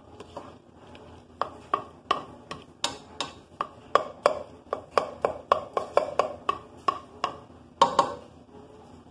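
A plastic spoon stirring macaroni and crumbled sausage in a pot, knocking against the pot's side and rim in a run of short ringing taps, about two or three a second, starting about a second and a half in. The loudest knock comes near the end.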